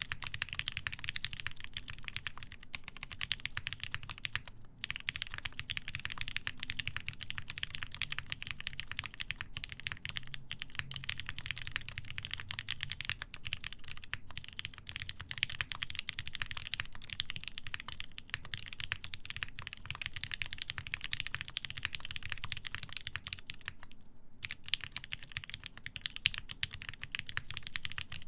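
Fast continuous typing on a TGR Jane v2 custom mechanical keyboard with lubed linear Alpaca switches, a half polycarbonate plate and GMK keycaps, a dense run of key clacks with brief pauses about five seconds in and again near the end.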